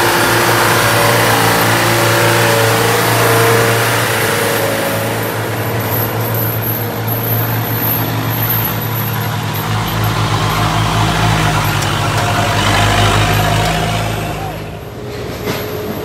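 Heavy truck engines running. A deeper, pulsing engine rumble builds about ten seconds in and fades near the end.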